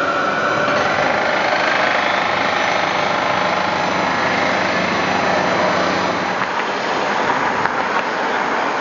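Tram running past, a steady rumble with a hum that eases off about six seconds in.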